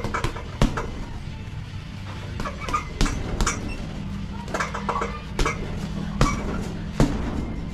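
Boxing gloves punching a hanging heavy bag: a run of sharp thuds at irregular spacing, some in quick pairs.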